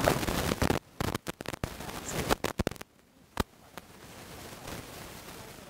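Irregular sharp clicks and crackles over faint room tone, with abrupt drops to silence in between.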